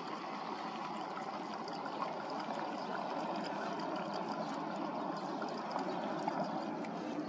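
Dog lapping water from a bowl, a steady wet sound with many small clicks.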